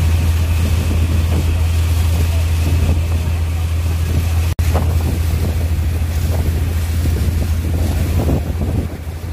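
Steady low engine drone with wind noise on the microphone and a constant hiss, as fire hoses spray water onto a burning fishing boat; the sound breaks off for an instant about halfway through.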